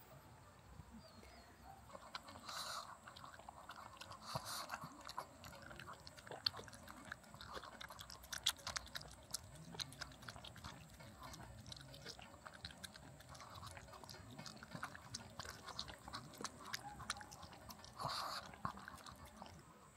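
Small mixed-breed dog eating sujebi soup from a bowl close to the microphone: soft wet chewing and many small clicks and smacks of the mouth, with a few louder bursts.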